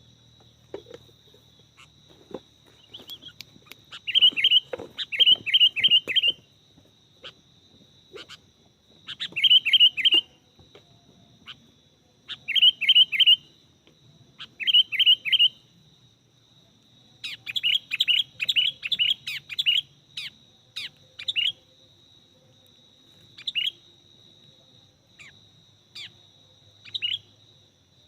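Sooty-headed bulbul (kutilang) calling: quick runs of three to five sharp, downward-sliding notes, repeated every few seconds, with a longer run about two-thirds of the way in and then scattered single notes. A steady high-pitched tone sounds underneath.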